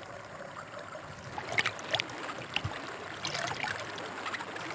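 Water trickling and dripping at a hot spring pool, with a few scattered short drips or splashes.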